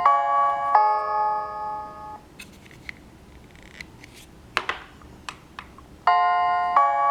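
Honeywell My Chime wireless doorbell playing one of its normal chime tunes: a few ringing electronic bell notes that fade out about two seconds in. Scattered clicks follow, and a second chime tune starts about six seconds in.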